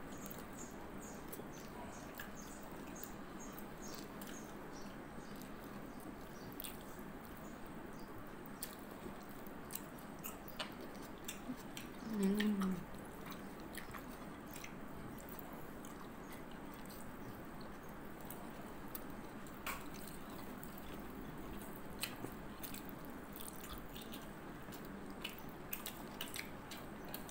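A person eating rice with her fingers: faint chewing and small mouth and finger clicks over a steady room hiss, with one short hum from her voice about halfway through.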